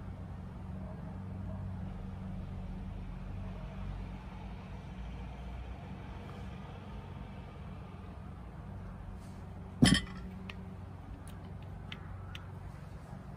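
Steady low rumble like distant traffic; about ten seconds in, one sharp knock as a glass olive oil bottle is set down on a cloth-covered table, followed by a few light clicks.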